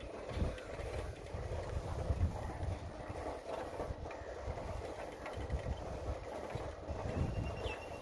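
Wind buffeting the microphone in low gusts over the rattle and road noise of a moving bicycle on asphalt.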